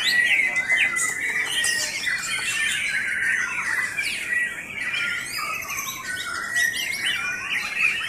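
Many caged white-rumped shamas (murai batu) singing at once: a dense chorus of overlapping whistles, chirps and quick trills.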